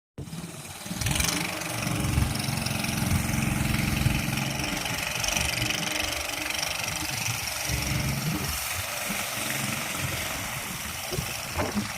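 A small engine running steadily, a low hum with a noisy rattle over it.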